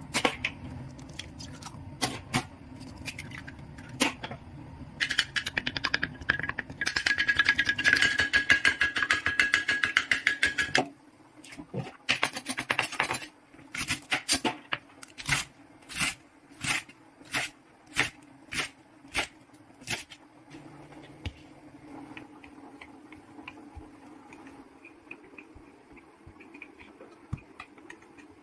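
A few clinks against a glass bowl, then an egg beaten fast in the glass bowl for about six seconds. Then a chef's knife chopping a bundle of garlic scapes on a wooden cutting board, about ten even strokes. Near the end, a rolling pin rolls out dough with a faint rumble.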